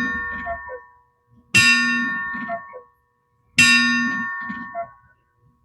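Bell of a giant outdoor cuckoo clock striking, one stroke about every two seconds. Two new strokes land about a second and a half and three and a half seconds in, each ringing out and fading before the next.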